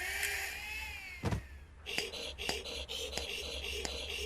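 Cartoon sound effects: a gliding, whistle-like tone for the first couple of seconds, a thump a little over a second in, then a fast, even patter of clicks.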